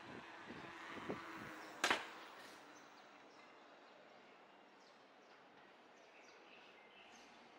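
Faint city-street background with one sharp clack about two seconds in, the loudest sound.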